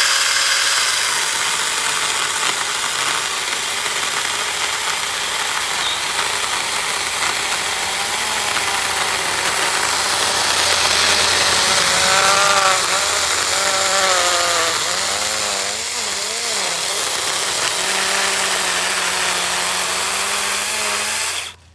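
Saker 20 V cordless mini chainsaw running steadily, its chain cutting through a tree stump at ground level. Its pitch wavers in the middle of the cut, and it stops suddenly near the end.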